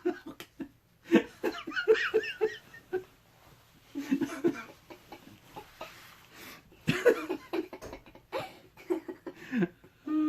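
A man and a boy laughing in several bursts with short pauses between.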